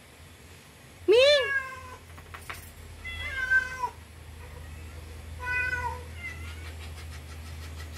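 Cat meowing: three drawn-out meows, the first and loudest about a second in, the others around three and five and a half seconds, each bending up then down in pitch.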